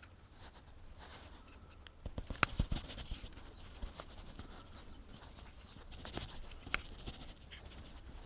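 Scattered plastic clicks and scraping as a multifunction (turn signal) switch is worked by hand to free it from a Dodge Ram's steering column. A flurry of clicks comes about two seconds in, and a single sharp click comes near the end.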